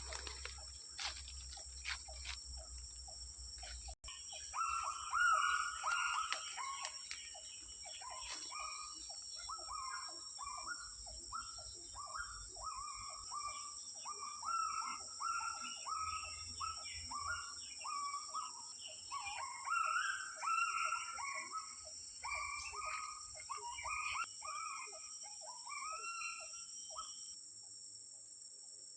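A forest bird calling in a long run of short, quick chirping notes, over the steady high drone of insects. The calls begin a few seconds in and stop shortly before the end.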